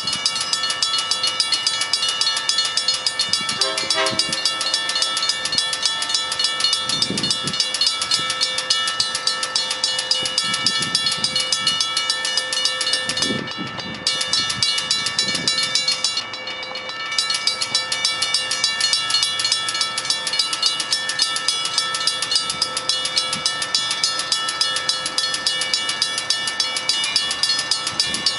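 Safetran railroad-crossing bell ringing steadily with a rapid, even strike, the warning that a train is approaching or occupying the crossing. The ringing goes briefly dull twice around the middle.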